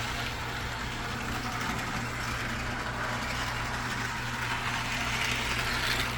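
Serviced Mantua HO-scale locomotive running around the track, its small electric motor and gears giving a steady whirring noise with a low hum under it, a little noisy but not bad. The sound cuts off sharply at the end as the locomotive stops.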